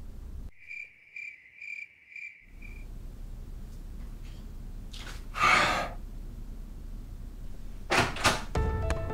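Drama sound effects: five short high chirps, evenly spaced about half a second apart, over a sudden hush. Then a loud whoosh-like hit about five and a half seconds in, two sharp knocks near the end, and music notes starting just after.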